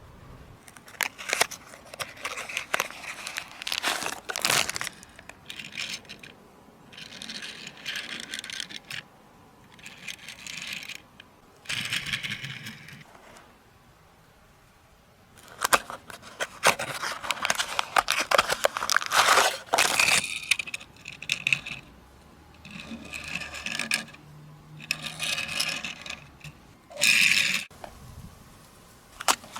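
Toy-car packaging being handled and opened by hand: irregular bursts of scraping, tearing and crinkling, in stops and starts with short pauses between them.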